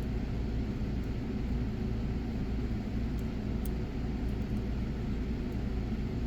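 Steady low background rumble, with a few faint light ticks about halfway through from a pick working the pins of a padlock.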